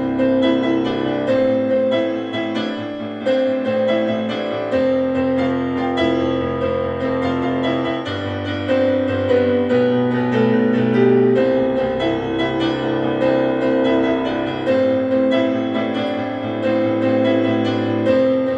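Piano-led background music over held bass notes that change every few seconds, starting to fade near the end.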